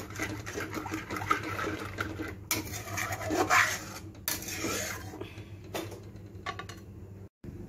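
A spatula scraping and stirring a thick yogurt-and-cream masala around a metal kadhai, a rough irregular rasping with a few sharp knocks against the pan.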